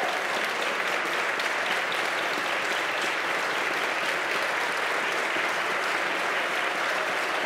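Large crowd applauding steadily, many hands clapping at once.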